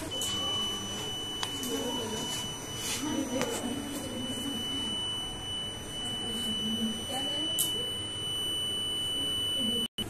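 Small black buzzer of a NAND-gate burglar-alarm circuit sounding one continuous high-pitched tone: with both plug-key switches open, the gate's output is 1 and the alarm is on. A few light clicks are heard, and the tone stops abruptly just before the end.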